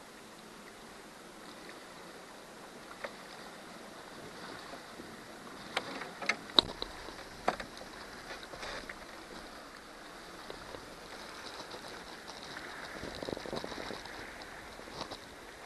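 Handling noises in a canoe: a few sharp knocks and clicks about six to seven and a half seconds in, over a faint steady hiss of water and open air.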